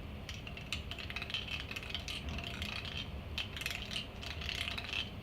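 A metal tool scraping and clicking against the metal parts inside an iMac G3, a rapid, irregular run of small ticks and scrapes: the capacitors being grounded out.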